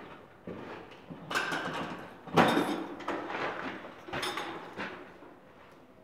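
A few short scrapes and rubs, the loudest about two and a half seconds in, as a PVC drain pipe is pushed and slid into a groove cut in a concrete block wall.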